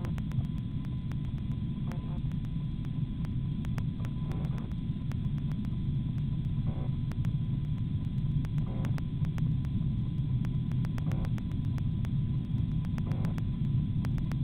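A steady low rumbling hum, with faint scattered ticks over it.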